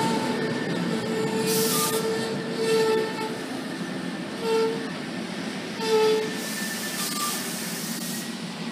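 NJ Transit commuter train's Comet passenger cars rolling slowly past at a station, with a steady rumble of wheels on rail. Short high tones recur every second or two at a few fixed pitches, and there are two brief hisses, one about a second and a half in and one from about six and a half seconds in.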